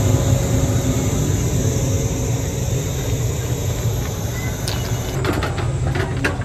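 A train running with a steady low rumble and rolling noise, with a few sharp clicks and knocks near the end.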